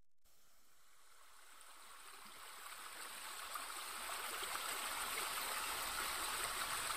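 Running water of a stream, fading in gradually and then holding steady.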